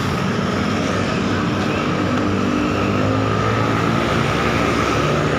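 Steady roadside traffic noise, with a large vehicle's engine running close by.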